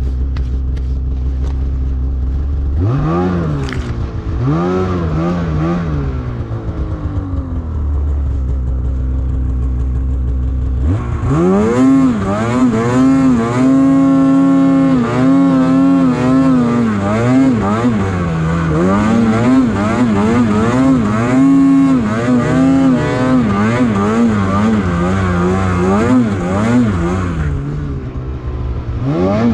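Snowmobile engine idling, revved briefly twice, idling again, then opened up from about 11 seconds and held at high revs with the pitch rising and falling under throttle, easing off and picking up again near the end.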